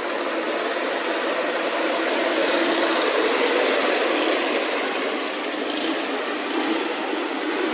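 Small engine of a motorcycle-based tuk-tuk running steadily as it drives along the street.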